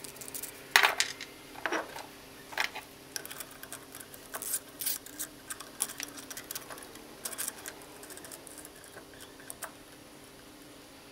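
Steel bearing splitter and threaded rods being handled and fitted around a motor shaft: irregular metallic clicks and clinks, the two loudest in the first two seconds, growing sparse after about eight seconds.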